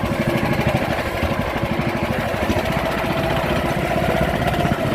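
Small boat engine running steadily, a fast even chugging.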